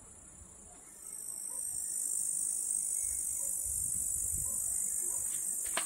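A steady, high-pitched insect trill, like a cricket or grasshopper stridulating, that swells in about a second in and holds evenly.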